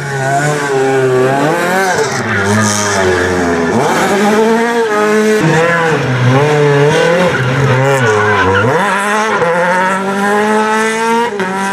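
Renault Clio R3 rally car's two-litre four-cylinder engine revving hard through the bends. The engine pitch climbs and then drops sharply several times as it accelerates, shifts and lifts for corners.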